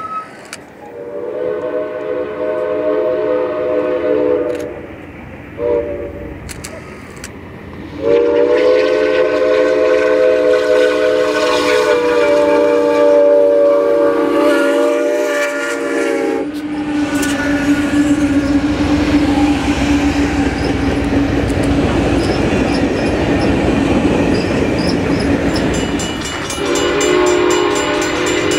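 Steam locomotive whistle sounding a chord of several notes: a long blast, a short one, then a longer one of about eight seconds. Then the train rumbles and clatters past with a steady low drone. Near the end a steam whistle chord starts again.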